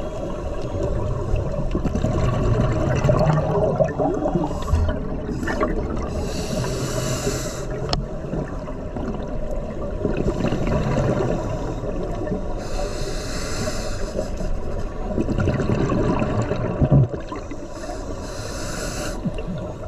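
Scuba diver breathing through a regulator underwater: a hiss with each inhale through the demand valve, roughly every six seconds, and a low bubbling gurgle of exhaled air between them. One brief knock near the end.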